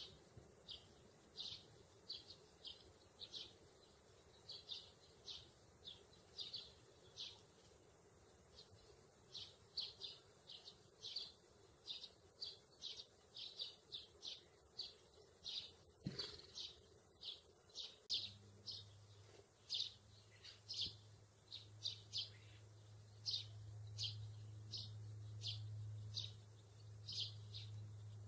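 Sparrows chirping: a steady run of short, high chirps, about two a second. A low hum sets in about two-thirds of the way through.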